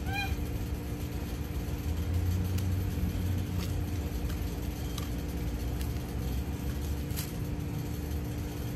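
A steady low mechanical hum with a faint steady tone running through it, and a few faint clicks.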